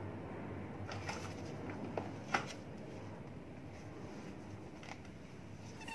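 Cardboard laptop box being handled and turned over: a few light taps and scrapes, the sharpest about two seconds in, over a steady low background hum.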